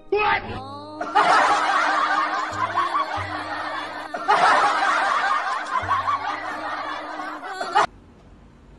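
Laugh-track sound effect: many voices laughing together in two swells over music, cutting off suddenly near the end.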